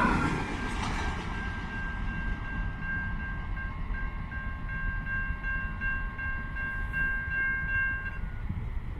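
Container freight train wagons rolling away, a low rumble that fades after the first second. Over it runs a thin high-pitched squeal of several steady tones, broken briefly now and then, that stops about a second before the end.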